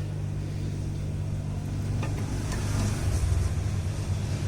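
Hot-air rework blower running with a steady motor hum and a hiss of air, a little louder about three seconds in, while it heats solder to fit a new phone charging connector.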